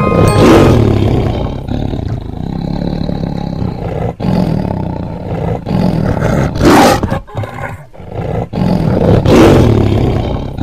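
Loud animal roaring: three long roars, about half a second in, near the middle and near the end, with a rumbling growl running between them.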